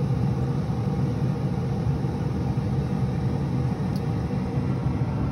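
Cabela's Pro Series pellet grill running, a steady low hum.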